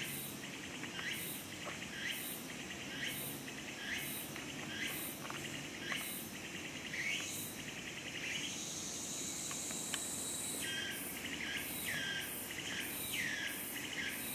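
Insects chirping in short buzzy bursts, repeating about twice a second, with a rising hiss partway through.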